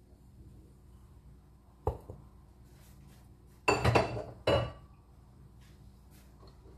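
Clinks and knocks against a glass mixing bowl as flour is tipped in from a plastic bowl: a single knock about two seconds in, then a quick run of ringing clinks about two seconds later.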